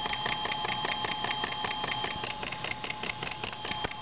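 Canon tape camcorder's tape transport running in rewind: a rapid, even clicking, several clicks a second, over a steady whine.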